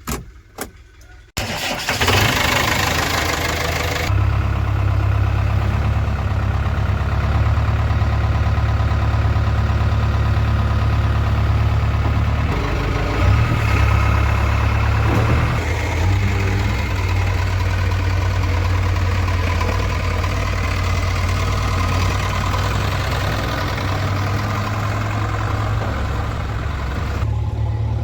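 JCB 3DX backhoe loader's diesel engine starting up about a second in with a loud burst of noise, then running steadily, its revs shifting a little around the middle.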